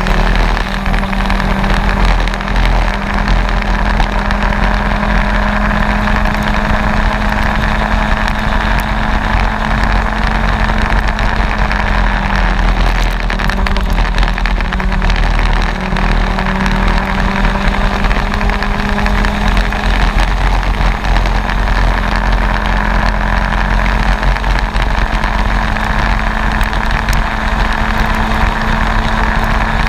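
Racing kart engine running hard at speed, its pitch holding nearly steady with only slight rises and dips, over steady wind and road rush on an onboard microphone.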